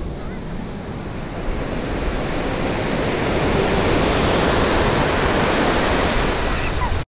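Ocean surf washing up on a sandy beach: a steady rush of breaking waves that grows louder over the first few seconds, then cuts off suddenly near the end.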